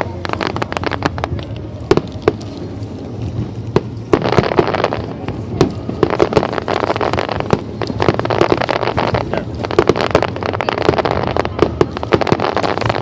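Aerial fireworks going off: many sharp bangs and crackles, thinning out briefly, then coming thick and louder from about four seconds in.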